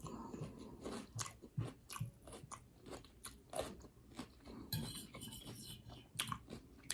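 Close-up chewing of a raw garden salad: crisp, crunchy bites of fresh vegetables, irregular and repeated.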